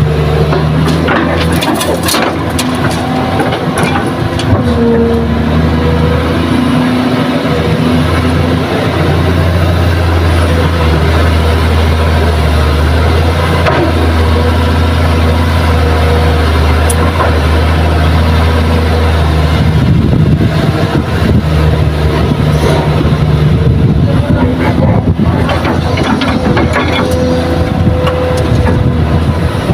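Kobelco SK200 excavator's diesel engine running steadily under hydraulic load while it loads a dump truck, its note changing about two-thirds of the way through. A few clattering thuds of earth and stones dropping into the truck bed come near the start and near the end.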